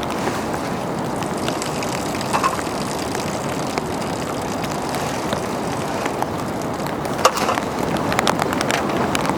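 Steady rushing water noise, with scattered sharp ticks and taps in the second half.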